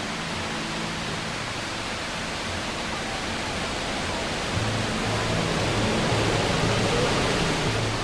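Steady rushing roar of the Rhine Falls' white water, with low background-music notes underneath that get louder about halfway through.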